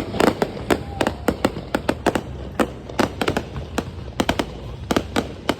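Fireworks going off in quick, irregular succession: many sharp bangs and crackles, several a second, over a steady low rumble.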